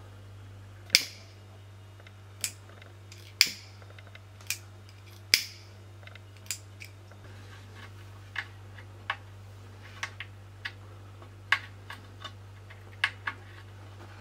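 Irregular sharp clicks and knocks, about twenty in all, with the three loudest, about one, three and a half and five and a half seconds in, each followed by a brief hiss, over a steady low hum.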